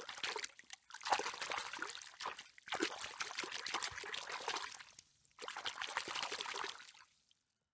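Water trickling and splashing in uneven bursts, cutting off suddenly near the end.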